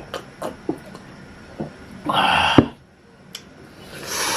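Sounds of someone eating roasted chicken by hand: a few small clicks and smacks, then two short noisy rustles, about two and four seconds in, the first ending in a sharp click.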